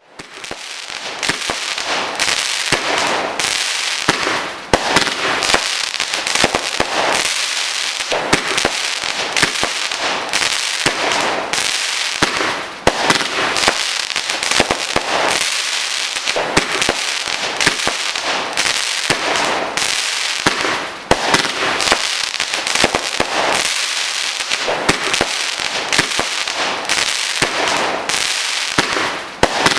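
Fireworks crackling and popping without pause: a dense run of rapid sharp cracks over a steady hiss, briefly dropping away about every eight seconds.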